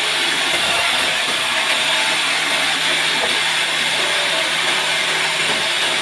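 Large vertical band saw running steadily with a constant low hum, its blade cutting a bark-covered log slab as it is fed across the table.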